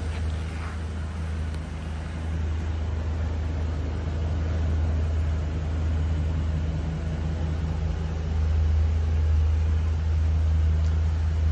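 Ford E450 ambulance's 6.8 L V10 gas engine idling: a steady low hum, a little louder toward the end.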